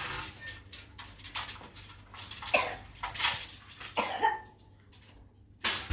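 A person coughing several times in short bursts.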